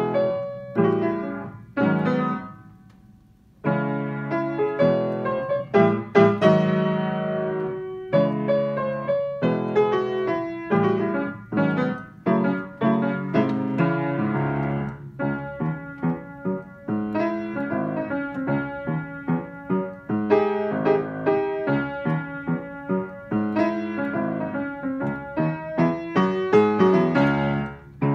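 Kawai grand piano played solo: a lively, jazzy piece of quick struck notes and chords, with a brief break about three seconds in before the playing resumes.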